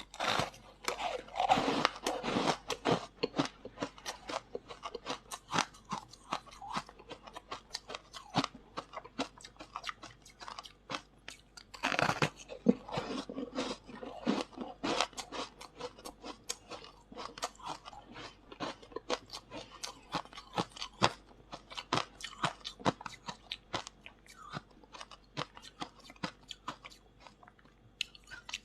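Close-up crunching and chewing of freezer frost ice: a dense run of crisp crackles, with louder bites about two seconds in and again about twelve seconds in.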